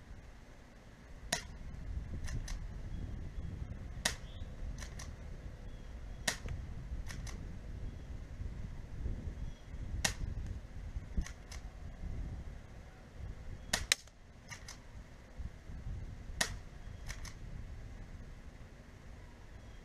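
About a dozen sharp, irregularly spaced clicks, some in close pairs: shots from a UKArms V61 spring-powered airsoft Skorpion and BBs striking the target. A low rumble runs underneath.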